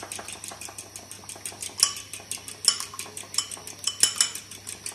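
Two raw eggs being beaten in a glass bowl with a metal utensil: a quick run of clinks, several a second, as the utensil strikes the glass, with a few louder clinks about two, three and four seconds in.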